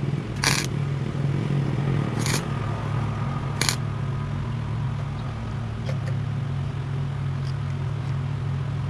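Small welder striking three brief tack welds on a spliced steel choke-cable wire, each a short crackling burst, about half a second, two and a quarter and three and a half seconds in, over a steady low hum. The tacks are held only an instant so the thin wire doesn't burn through.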